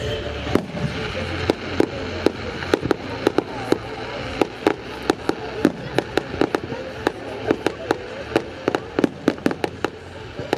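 Fireworks bursting over water: a run of sharp bangs and pops at irregular intervals, coming faster near the end.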